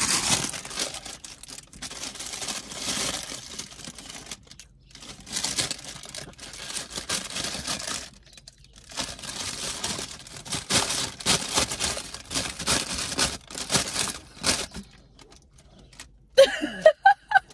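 Paper cookie bag crinkling and rustling as it is opened and the cookies are pulled out, in three long stretches with short pauses between. A brief voice near the end.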